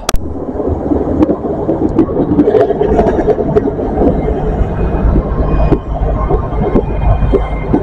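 Diesel train running through the station at close range: a loud, continuous rumble with scattered clicks and knocks, and a steady engine hum coming in after about five seconds.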